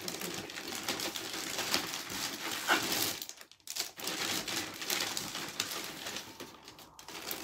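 Plastic packaging crinkling and rustling as items are handled and pulled out of plastic bags, with a brief lull about halfway through.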